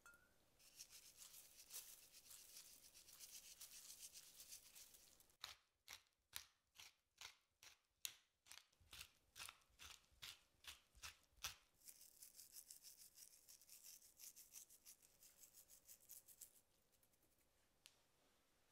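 Faint seasoning of raw cabbage wedges on a baking tray: a fine grainy hiss of salt and dried herbs being sprinkled, with a run of sharp clicks about two a second in the middle as black pepper is ground over them.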